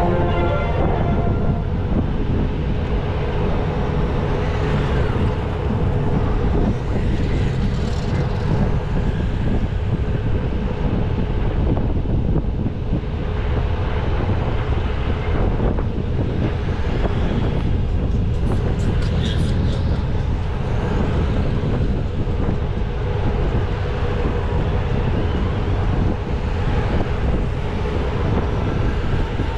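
A procession of Honda Gold Wing touring motorcycles riding slowly past in a long line, a steady drone of many engines with a continuous hum.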